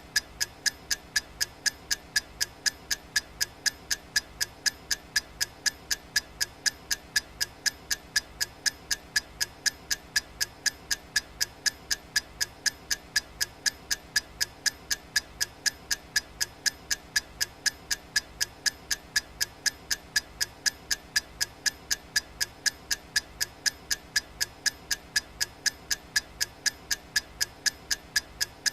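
Clock ticking sound effect: a fast, perfectly even run of sharp ticks, keeping time for a countdown timer.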